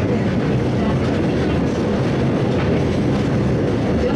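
Hakodate City Tram Type 30 car No. 39, the Haikara-go, running along street track, heard from its driver's cab: a steady rolling rumble with a few faint clicks.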